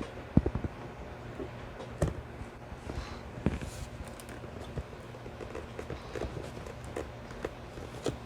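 Scattered small clicks, taps and knocks of hands handling computer parts and plastic connectors at a motherboard, over a faint steady low hum.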